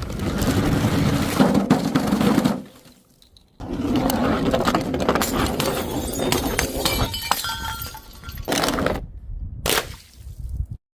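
Glass bottles breaking and being crushed: dense crunching and cracking of glass in several separate bursts, with brief quiet gaps between them and a sudden cut-off near the end.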